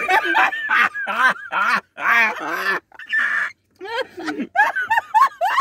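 Hearty laughter in rapid, pitched bursts, with a short break about three and a half seconds in.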